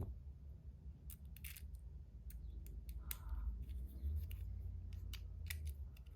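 Irregular small sharp metal clicks and taps as a small screw is set and driven into the cover of a metal bubble fidget toy.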